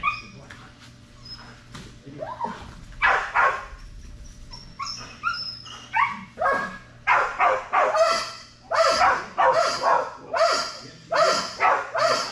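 A dog whining and yipping with short high cries, then barking over and over, about two barks a second from about seven seconds in.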